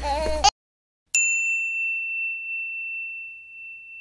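Children's voices cut off abruptly, then after a moment of dead silence a single bright ding sound effect strikes about a second in and rings on as one clear tone, slowly fading, as the edit moves to a title card.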